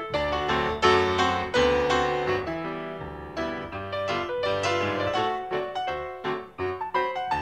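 Background piano music, a run of struck notes playing a melody.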